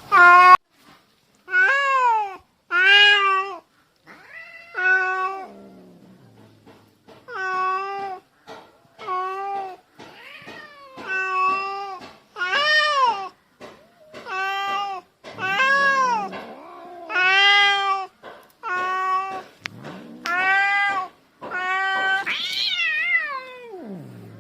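A cat giving threat yowls at another cat in a standoff: about twenty short, drawn-out meows, each rising and falling in pitch. Near the end comes one longer call that drops into a low growl.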